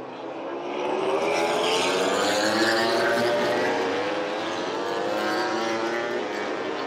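MotoGP race motorcycles, 1000 cc four-cylinder four-strokes, passing on the circuit at race speed. Their engine notes rise and fall and swell loudest about two to three seconds in.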